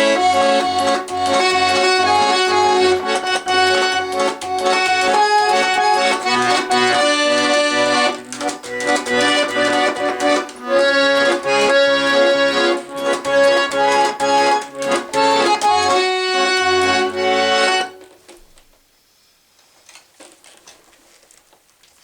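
Russian garmon (button accordion) playing a melody over pulsing bass-chord accompaniment, then stopping abruptly about four seconds before the end, leaving faint room noise.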